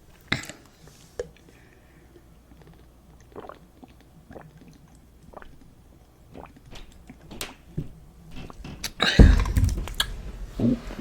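Close-miked chewing and eating mouth sounds: scattered wet smacks and clicks. About nine seconds in comes a louder burst of noise, heavy in the low end.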